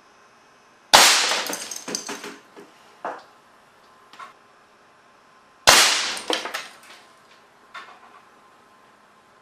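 Two shots from a compressed-air cannon with a .410 barrel, about five seconds apart, each a sharp blast of air released by a solenoid valve. Each is followed by about a second and a half of clattering and rattling as the slug hits a hanging computer keyboard, with a few smaller knocks after.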